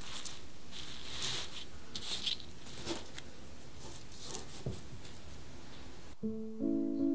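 Hands rustling and pressing a bundle of fresh mugwort stems and leaves, with several short, crisp leafy rustles. The rustling cuts off suddenly near the end and piano music comes in.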